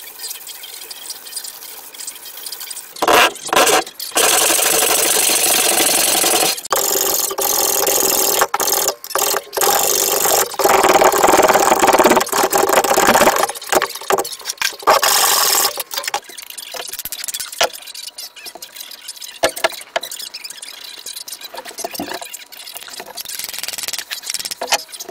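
Sandpaper rubbing along a wooden axe handle, then repeated strokes of a hand plane shaving the handle, each stroke a loud hiss broken by short gaps. It goes quieter after that, with a few sharp knocks near the end.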